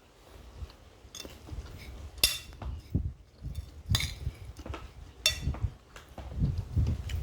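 Cutlery clinking against a plate while eating a meal: three sharp clinks about a second or more apart, with fainter ones between.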